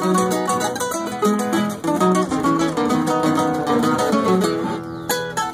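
Three nylon-string classical guitars playing a gato cuyano, an Argentine folk dance, together: a plucked melody over strummed chords in a steady rhythm.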